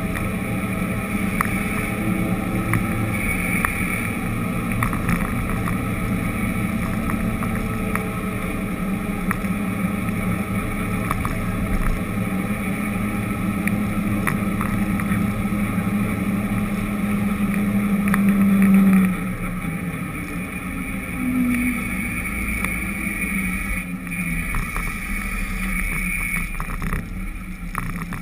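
Engine of the vehicle carrying the camera, a steady drone while driving along a street, with occasional light clicks. The engine note grows louder about two-thirds of the way through, then drops suddenly.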